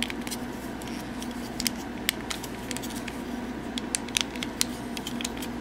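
Plastic parts of a hand-held 52Toys BeastBox BB-38 Gunpowder transforming figure being worked by hand, with scattered sharp clicks as its panels and tabs snap and peg into place.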